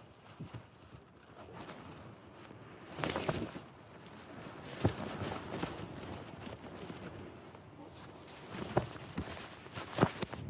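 Strong wind gusting against a tent on an exposed ridge, with a few sharp snaps and rattles of the fabric, the loudest near the end.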